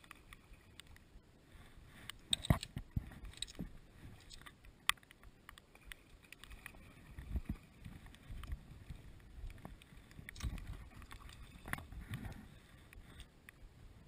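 Water splashing and sloshing at the surface around a fly line, with scattered clicks and knocks from handling the fly rod and line, and a little wind on the microphone.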